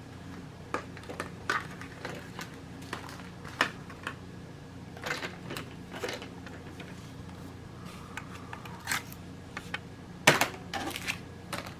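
Scattered clicks and knocks of small objects being handled and set down on a hard surface, at irregular intervals, with the loudest knock about ten seconds in, over a faint steady low hum.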